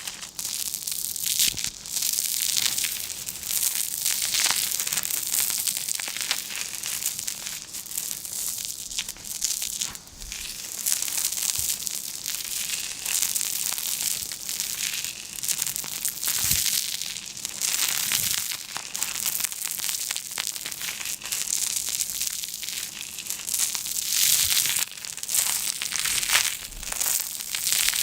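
Continuous crinkling and crushing of a material being crumpled and handled, with many small irregular crackles.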